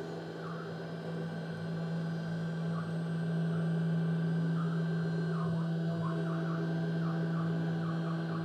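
CNC wood router milling MDF with an 8 mm radius cutter: the spindle runs with a steady hum, and short falling whines come from the axis motors as the feed changes speed and direction, more often in the second half.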